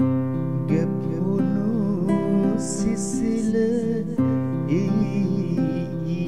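Instrumental music: strummed acoustic guitar under a gliding melody line, a pause between sung verses.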